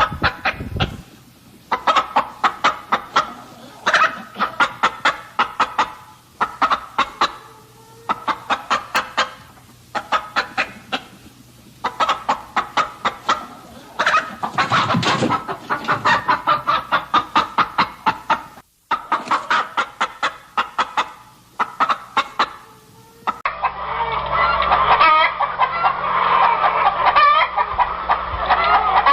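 Chickens clucking in fast runs of short clucks, with brief pauses between runs. Near the end it becomes a denser chorus of many birds clucking and calling over one another.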